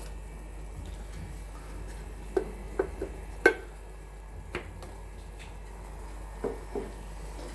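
Light clinks of a metal spoon against a saucepan of tea as tea leaves are added: about seven short taps spread over a few seconds, the loudest a sharp clink about three and a half seconds in. A steady low hum underneath.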